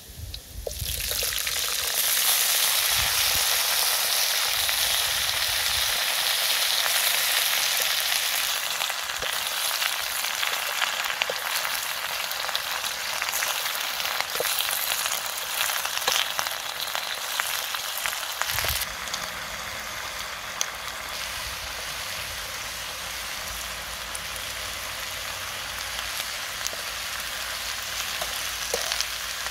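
Shredded cabbage hitting hot oil with garlic and chili in a metal wok, sizzling loudly about a second in, then frying steadily as a wooden spatula stirs it, with occasional taps and scrapes against the pan. The sizzle is strongest in the first few seconds and eases somewhat later on.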